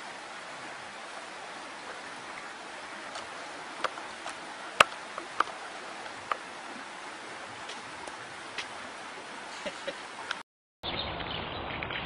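Steady rush of flowing water with a few scattered sharp clicks, one much louder about five seconds in. Near the end the sound cuts out briefly and gives way to a louder, duller outdoor recording with a quick patter of clicks.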